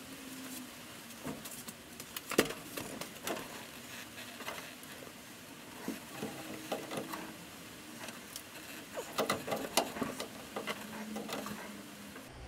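Irregular light clicks and taps of hands handling metal parts and tools around a 1949 Chevy 3100's transmission and torque-tube ball housing, over a steady hiss.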